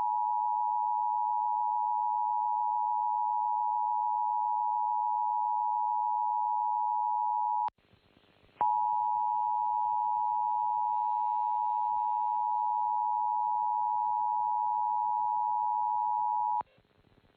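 Emergency Alert System attention tone: a loud, steady electronic tone near 1 kHz that sounds for about eight seconds, breaks off for about a second, then sounds for about eight seconds more before stopping shortly before the end.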